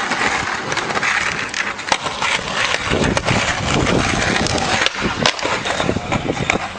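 Skateboard wheels rolling, with sharp clacks of the board now and then. The rolling grows louder and deeper about three seconds in.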